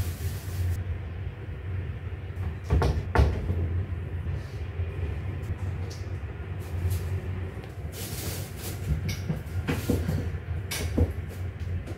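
Hands setting tomato pieces onto a slice of bread on a ceramic plate, with a few soft knocks and clicks. Near the end a squeeze bottle of mayonnaise squirts and sputters. A steady low hum sits underneath.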